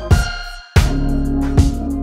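Background music with a drum beat over a held bass note; it drops out briefly a little before the one-second mark, then comes back in.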